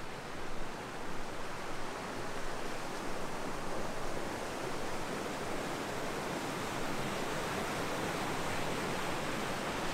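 Mountain creek rushing over rocks in a whitewater cascade: a steady rushing noise that grows a little louder over the first couple of seconds, then holds.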